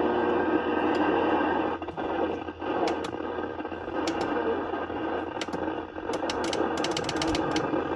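Weather radio receivers putting out a steady static-like noise, with scattered sharp clicks, a dense cluster of them near the end.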